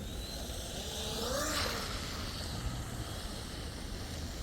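Electric RC tunnel-hull boat's brushless outboard motor whining in the distance across a pond, rising and falling in pitch as the boat runs and turns, louder about a second and a half in. Wind rumbles on the microphone underneath.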